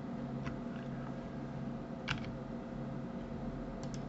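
A few faint clicks of a computer mouse and keyboard, the strongest about two seconds in and a quick pair near the end, over a steady low electrical hum.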